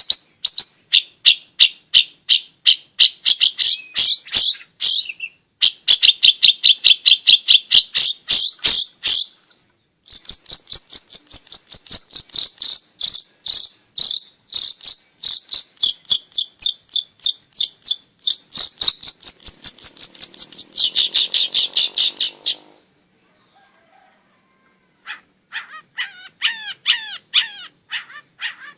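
Long-tailed shrike (cendet) in full song: a fast, chattering run of high notes at about five a second, with two short breaks, stopping suddenly about two-thirds of the way through. After a short silence, a different string of lower, falling yelping calls starts near the end.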